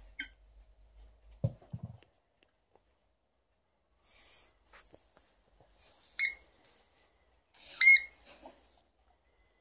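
A squeaky dog-toy ball squeezed twice, giving two short high squeaks about a second and a half apart, the second louder. Soft breathy sounds come before them.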